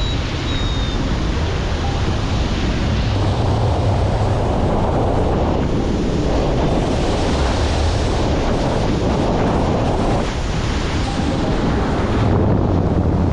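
Loud, steady rushing noise, with wind buffeting the microphone as a flickering low rumble.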